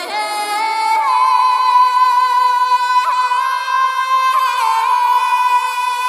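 Music: a high voice holding long, steady notes, sliding up into each new note every second or two.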